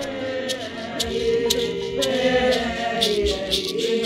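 Indigenous chant: voices singing long held notes, with a rattle shaken in a steady beat about twice a second.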